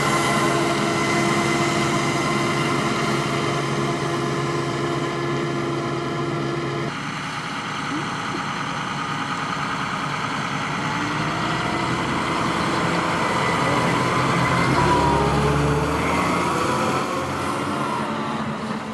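Heavy diesel farm machinery running steadily. The sound changes abruptly about seven seconds in, and some rising tones come in a few seconds before the end.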